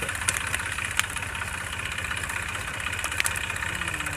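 Eicher 380 tractor's diesel engine still idling steadily while the tractor is on fire, with a few sharp cracks over it.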